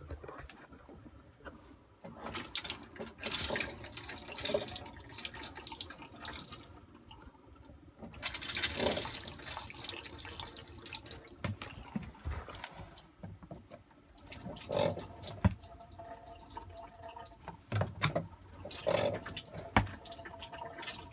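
Water pumped by a newly installed Whale Gusher foot pump gushing from the galley faucet into a stainless steel sink on its first run, coming in surges that swell and fade. A few knocks sound in the second half.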